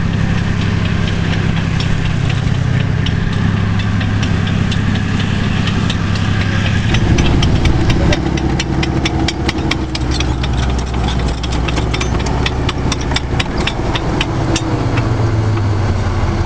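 T-34-85 tank's V-12 diesel engine running as the tank drives past close by, with a steady low hum that shifts about seven seconds in. Through the middle a rapid run of metallic clicks and clanks comes from its steel tracks.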